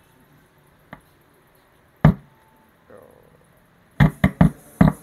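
A single loud thump about two seconds in, then a quick run of about five sharp knocks near the end, as the resoldered power amplifier of an active speaker is being tested.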